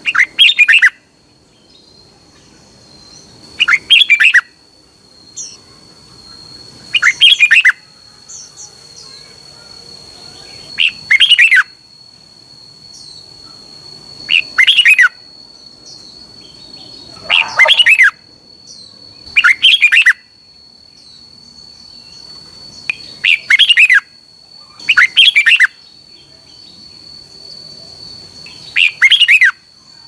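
Red-whiskered bulbul singing: about ten short, loud song phrases, each about a second long, coming every three to four seconds, over a faint steady high tone.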